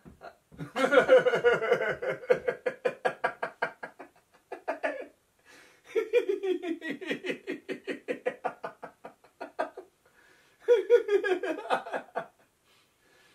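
A man and a woman laughing together in a laughter-yoga exercise: rapid, pulsing ha-ha-ha laughter in three long bouts with short pauses between them.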